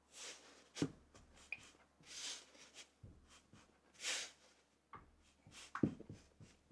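Red kinetic sand being dropped into a stainless steel cake ring and pressed down by hand: soft gritty rustles and crumbling swishes, with a few dull thumps as clumps land and fingers press, one about a second in and a couple near the end.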